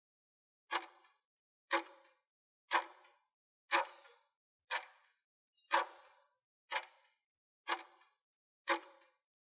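Countdown timer sound effect: a short clock tick once a second, nine ticks in all, marking off the seconds of an on-screen countdown.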